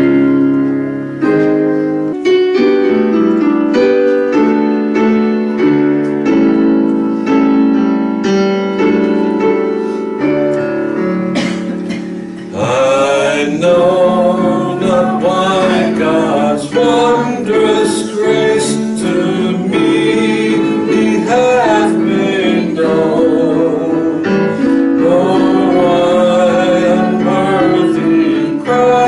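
A woman singing a solo with digital piano accompaniment. The keyboard plays alone for about the first twelve seconds, then her voice comes in with a wavering vibrato over the piano chords.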